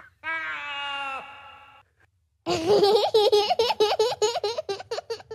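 A high-pitched, cartoonish voice gives a drawn-out note that trails off, then about two and a half seconds in breaks into a quick run of high 'ha-ha-ha' laughter lasting nearly three seconds.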